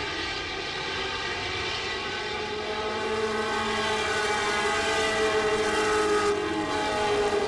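Several Pro Buggy off-road race cars' engines running hard as the pack races on the dirt track. Their engine notes overlap and shift slowly in pitch, getting louder about three seconds in.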